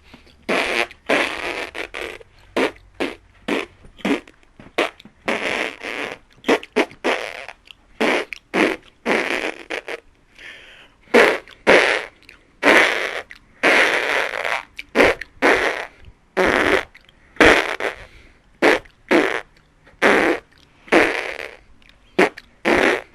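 A long run of fart noises: dozens of short, noisy blasts, some brief and some drawn out for about a second, one after another with short gaps.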